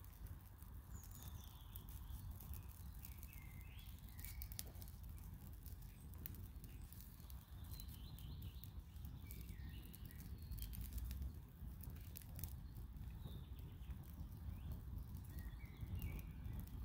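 Small kindling fire crackling, with irregular sharp pops and snaps as dry twigs catch. Small birds chirp briefly now and then in the background.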